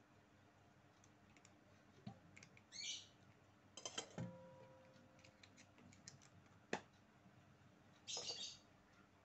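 Near silence with faint handling clicks. About four seconds in, a spoon knocks on the stainless steel mixing bowl and leaves a short metallic ring. Two faint high chirps come near three and eight seconds.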